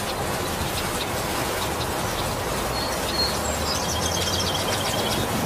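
Steady heavy rain falling on banana and papaya leaves, a continuous even patter. A bird gives a couple of short chirps about three seconds in, then a rapid run of chirps near the end.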